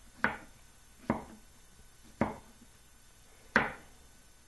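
A chef's knife slicing through patty pan squash and knocking down on a wooden cutting board, four sharp chops spaced about a second apart.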